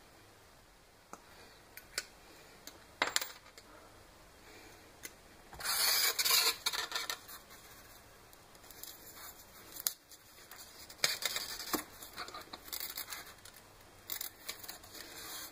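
Light clicks and scratching of a small hand tool and wire being worked into the foam nose of a model airplane, with a louder scratchy rasp about six seconds in and smaller scrapes later on.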